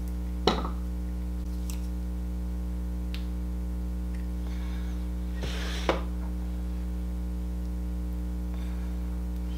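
Steady low electrical hum. A faint click comes about half a second in and a short breathy noise near six seconds.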